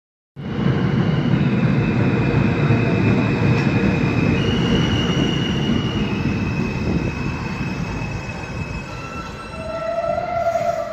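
R160 New York City subway train pulling into a station and slowing to a stop: heavy rumble of wheels on rail under the stepped electronic whine of its traction motors, fading as it slows. A squeal comes in near the end as it brakes to a halt.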